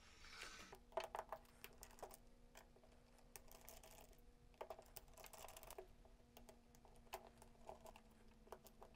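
Faint scattered clicks, taps and brief scraping of a Phillips screwdriver and hard plastic parts as screws are worked out of a small plastic gel blaster gearbox.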